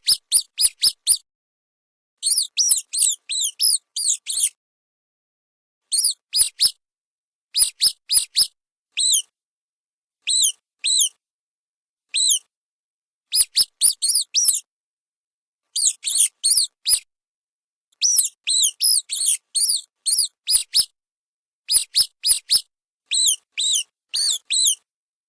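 Rodent squeaking: short, high-pitched squeaks in quick runs of three to eight, with gaps of about a second between runs.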